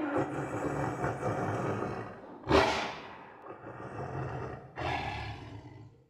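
Tiger roaring: a roar trailing off, then two more roars, one about two and a half seconds in and one near five seconds in, each starting loud and fading away.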